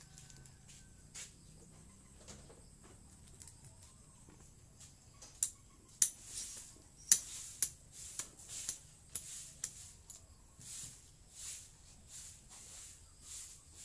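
A short-handled hand hoe chopping and scraping into loose garden soil: a few sharp strikes about halfway through, then a regular run of scraping strokes, about one and a half a second. A faint steady high insect whine sounds behind it.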